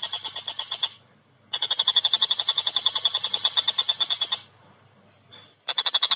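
Tengkek buto, a kingfisher, giving its fast rattling call: rapid, tightly spaced sharp notes in three bursts with short breaks between them, the middle burst lasting about three seconds.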